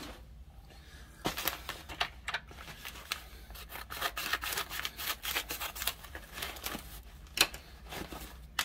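Plastic zip-lock bags of small Lego parts being handled: irregular crinkling with scattered light clicks.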